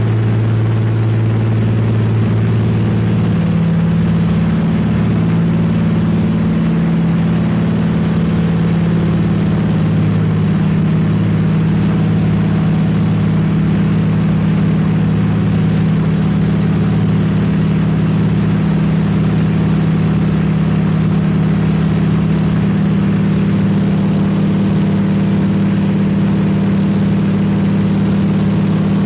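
De Havilland Canada DHC-2 Beaver floatplane's nine-cylinder Pratt & Whitney R-985 radial engine and propeller at take-off power, heard inside the cockpit as a loud, steady drone through the take-off run and lift-off from the water. The pitch shifts in the first few seconds, then holds steady.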